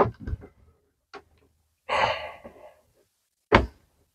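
Light handling sounds as a plastic shower-hose wall bracket is pressed onto the wall: a faint click about a second in and a sharp tap near the end, with a man's sigh about two seconds in.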